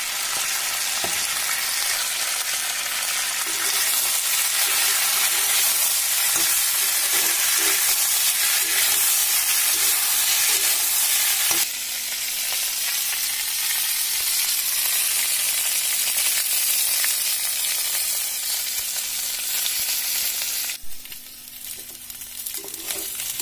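Raw jackfruit pieces sizzling steadily in hot oil in a kadhai, stirred now and then with a spatula. The sizzle eases a little about halfway through and turns much quieter near the end.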